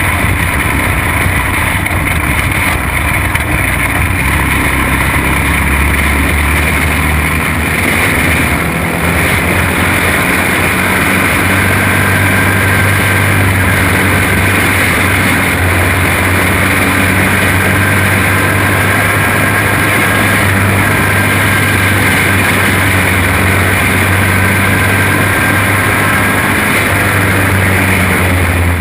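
Onboard sound of a junior champ kart's flathead racing engine running at speed, a steady drone that rises a little about a third of the way in and then holds.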